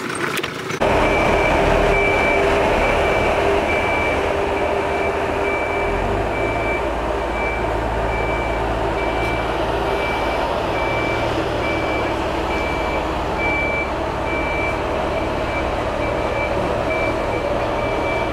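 Boatyard travel lift running: a steady engine rumble with its warning beeper giving a high beep over and over at an even pace. The rumble grows heavier about six seconds in.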